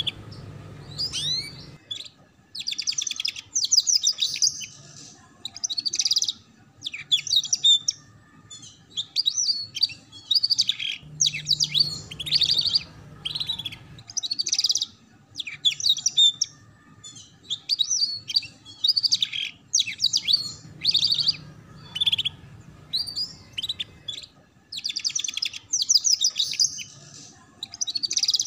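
Young canary singing in short, high-pitched phrases of rapid chattering trills and chirps, one after another with brief pauses. This is the 'ngeriwik' trilling style that a juvenile canary is learning.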